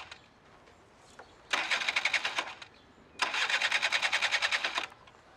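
Small scooter's electric starter cranking the engine in two tries, the first about a second long and the second about a second and a half, each stopping without the engine catching.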